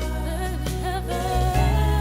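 Christian gospel-style music: a singing voice over sustained chords and a steady bass.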